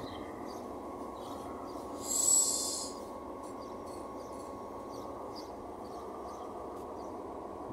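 Diesel multiple-unit train standing at the platform, its engine idling with a steady hum. About two seconds in, a loud hiss of released compressed air lasts just under a second.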